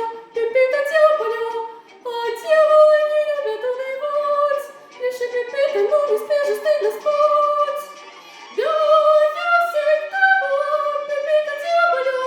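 A female voice singing an operetta song in a high register, in melodic phrases with short breaks for breath between them.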